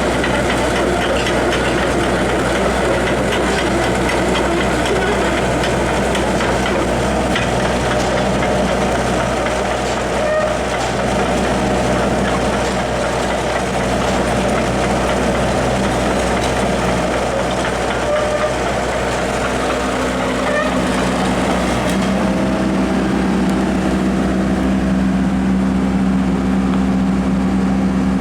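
Hyundai R55 mini excavator running, its diesel engine accompanied by a continuous mechanical clatter. About twenty-two seconds in, a steady droning hum sets in and holds.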